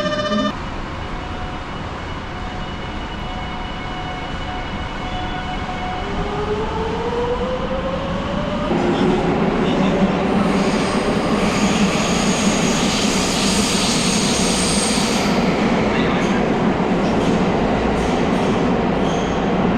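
Electric train pulling away and picking up speed. The motor's whine rises in pitch, then the running noise of wheels on rails grows louder, with a high whine from about ten to fifteen seconds in.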